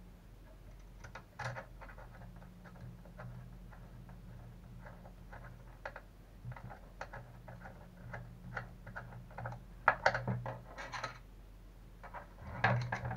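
Scattered light clicks, taps and scrapes of small plastic and metal parts being handled and fitted to a Traxxas Revo 3.3 RC truck's front steering and shock linkage, busiest about ten seconds in and again near the end, over a steady low hum.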